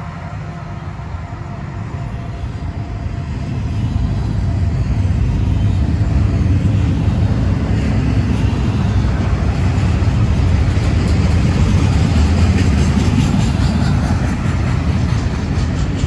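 Double-stack intermodal freight cars rolling past: a steady low rumble of steel wheels on rail, growing louder about four seconds in.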